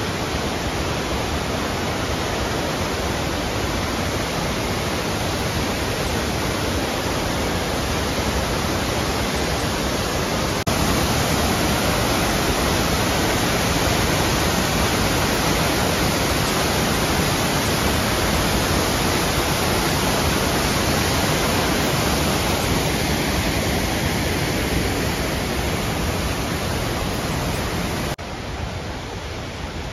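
Rodney Falls, a cascading mountain waterfall, rushing as a steady, even wash of white water. It gets louder about a third of the way in, at a close view of the falls. Near the end it drops to the softer rush of the creek below.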